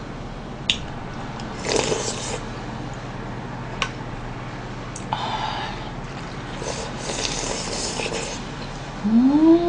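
A person eating pork and rice soup: slurping broth and noodles and chewing, with a few light clicks of a spoon and chopsticks against the bowl. Near the end comes a short hummed "mm" that rises and falls in pitch.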